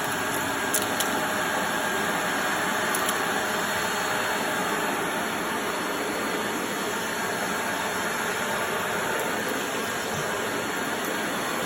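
Corded vacuum cleaner running steadily, a constant motor and suction noise, with a couple of faint ticks about one and three seconds in.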